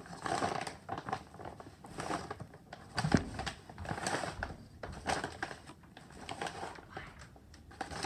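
Spoon stirring a sticky glue-and-baking-soda slime mixture in a bowl: irregular clicks of the spoon against the bowl and wet scraping.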